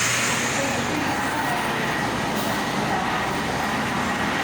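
Elevator car travelling down, a steady running noise with a faint high steady whine.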